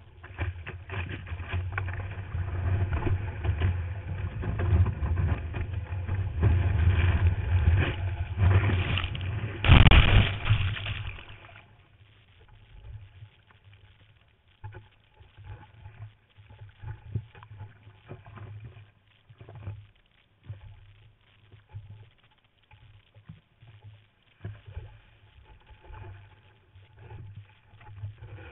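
Ocean water rushing and churning around a surfing camera at the water's surface. It is loud and continuous at first, swells to a loud surge about ten seconds in, then drops to quieter, intermittent splashes and sloshes.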